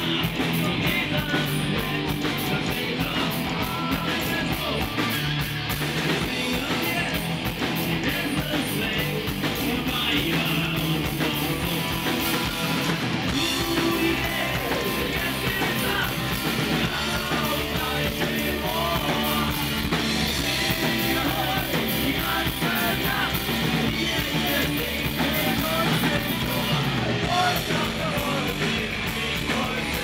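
Live rock band playing: electric guitars, bass guitar and drum kit, with a man singing lead vocals.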